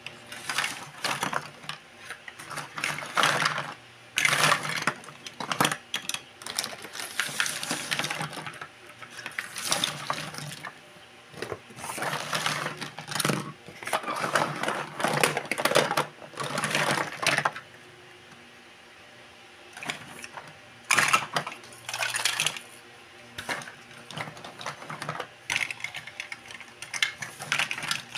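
Plastic toy cookware, lids and cut-fruit pieces clattering and clicking against each other and the table as they are picked up, moved and dropped into a plastic basket. The rattling comes in bursts, with a pause of a couple of seconds about two-thirds of the way through.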